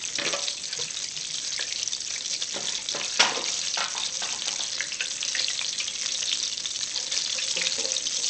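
Hot oil at 350°F sizzling and crackling steadily in an electric tabletop deep fryer, with one sharp knock about three seconds in.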